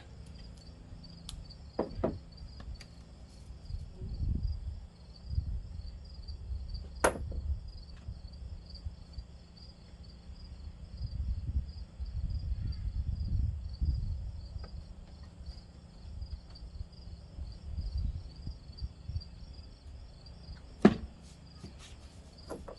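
Crickets chirping steadily in the background, with low rumbling handling noise and a few sharp clicks and knocks from work on the mower, the loudest about seven seconds in and again near the end.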